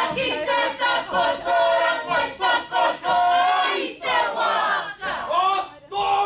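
A Māori group of men and women chanting loudly in unison, a welcome chant of the pōwhiri. It comes in phrases, with short breaks about four seconds in and again near the end.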